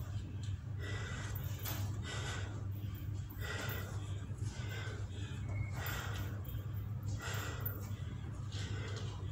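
A woman breathing hard during exercise: a run of quick, noisy breaths in and out, about one or two a second, over a steady low hum.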